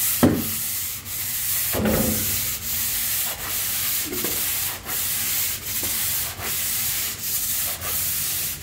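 Pole sander rubbing over dried drywall joint compound in steady back-and-forth strokes, about one stroke every three-quarters of a second, feathering the edges of the mud. A couple of short knocks come near the start.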